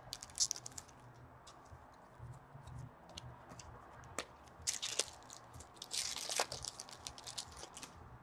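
2014-15 Upper Deck Series 1 hockey cards being flipped through by hand: quick snaps and slides of card stock, coming in short bunches.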